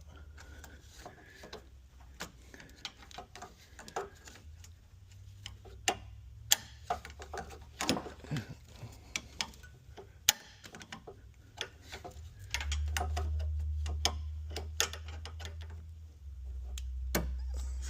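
Irregular small metallic clicks and taps of a pick tool working a metal retaining clip out of an oil cooler line quick-connect fitting, over a low steady hum that gets louder about two-thirds of the way through.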